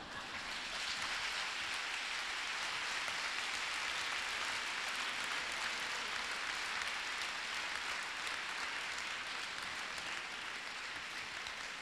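Large theatre audience applauding: dense, even clapping that swells within the first second, holds steady, and begins to taper off near the end.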